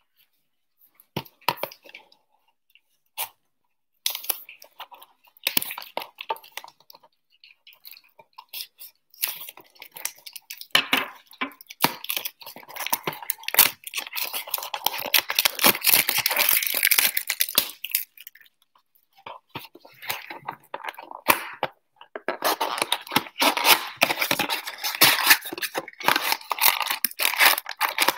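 Plastic shrink-wrap crinkling and tearing as it is stripped off a cardboard trading-card box, then the box's cardboard top pulled open near the end. A few scattered clicks at first, then long stretches of irregular crackling.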